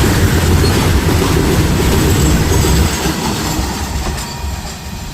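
BOXN freight train rolling past on the track: a steady rumble of wheels on rail that dies away over the last couple of seconds.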